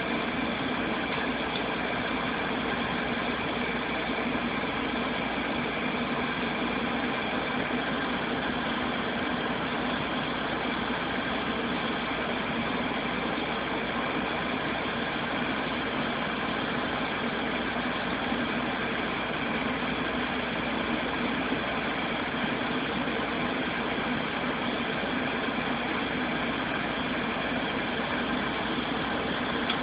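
Steady mechanical hum and hiss, unchanging throughout, with no separate sounds standing out.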